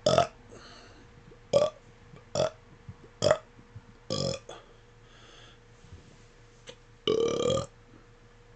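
A man deliberately burping: five short belly burps about a second apart, then after a pause a longer burp near the end.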